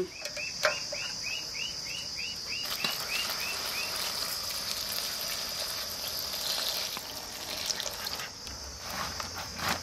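Water poured from a steel pail onto chopped taro stalks in a steel bowl, splashing steadily over them as they are washed.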